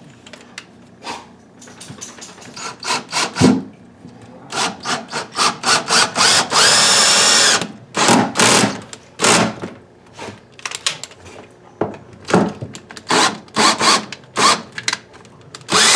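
DeWalt drill/driver sinking a tapered wood screw through the face frames to join two cabinets, run in many short trigger bursts with one longer steady run of about a second near the middle. A single knock comes about three and a half seconds in.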